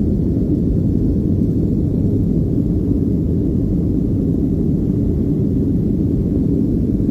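Cabin noise inside a jet airliner climbing out after takeoff: the engines and rushing air as a steady low rumble.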